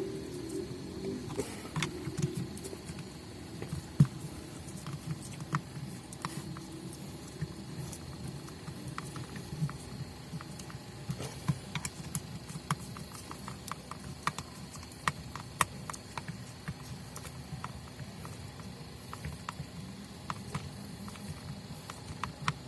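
Scattered light clicks and taps of small parts being handled and fitted together while an electric sander is reassembled by hand, over a low, uneven rumble.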